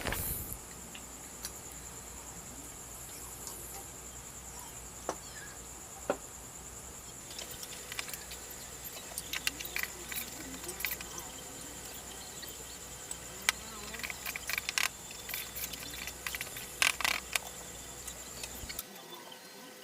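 A steady high-pitched whine that stops shortly before the end, with scattered light clicks and knocks starting about a third of the way in.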